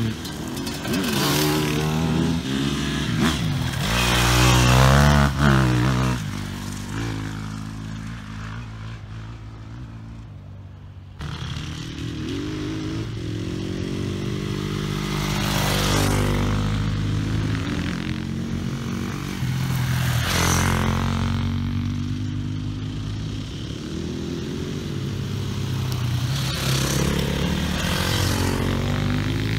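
Enduro motorcycles coming one after another along a gravel track, each engine revving up and down through the gears as it nears and passes. The loudest pass comes about five seconds in. Near eleven seconds the sound jumps abruptly to the next approaching bike.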